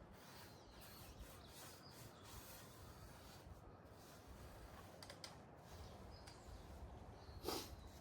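Near silence: faint outdoor background, with a brief scuffing noise near the end.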